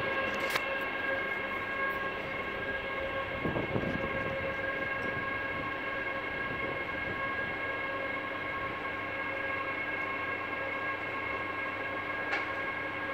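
Ganz-MÁVAG V63 electric locomotive standing with its transformer and auxiliary machinery switched on: a steady hum and high whine at several fixed pitches, with a short click about half a second in and another near the end.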